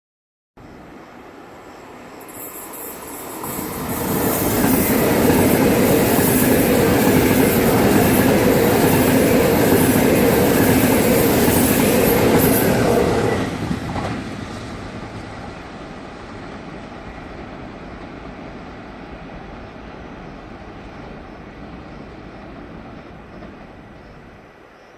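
A train passing through a station: the noise builds over a few seconds, stays loud for about nine seconds with a high hiss over the rumble of wheels on rails, drops off sharply about halfway through, then a lower rumble fades away.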